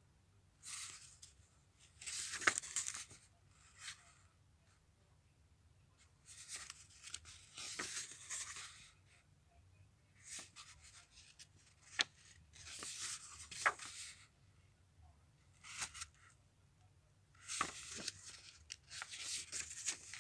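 Pages of a paperback picture book being handled and turned, with dry paper rustling coming in several separate bouts and a few sharp crinkles and ticks in between.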